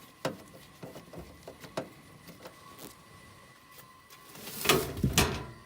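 Scattered clicks and knocks of hands working at a gas furnace cabinet, with a faint steady whine underneath. About four and a half seconds in, a rising scrape ends in two sharp knocks, the loudest sounds here.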